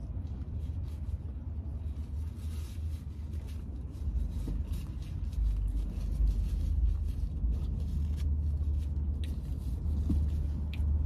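Steady low rumble of a parked car's idling engine, heard from inside the cabin, with faint chewing and small clicks from eating and a napkin near the end.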